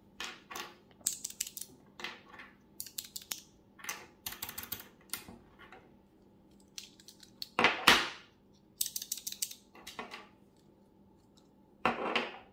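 Loose Alps key switches and switches in a small acrylic switch tester being pressed by hand: short bursts of quick clicks, several presses at a time, with pauses between. Two louder handling noises from the switches being picked up and moved, one about eight seconds in and one at the end.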